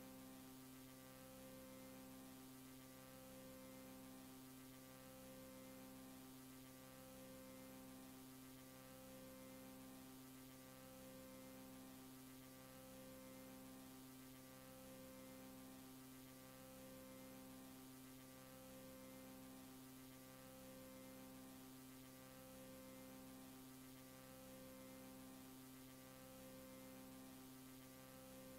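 Near silence: a faint steady electrical hum from the tape playback, with one low tone in it pulsing on and off about every two seconds.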